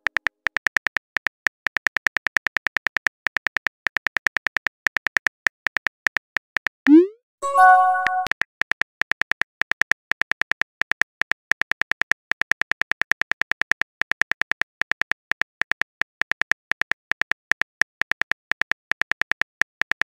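Rapid, even keyboard-typing clicks from a texting-app animation, about seven a second, as a message is typed letter by letter. About seven seconds in, the clicks pause for a short rising swoop and a brief chime as the message sends, then the typing clicks resume.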